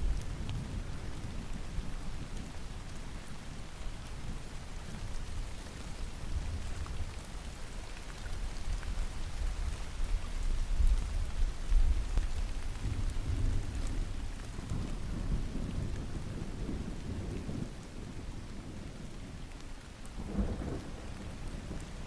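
Steady rain falling, with low rumbles of distant thunder that swell about halfway through and again near the end.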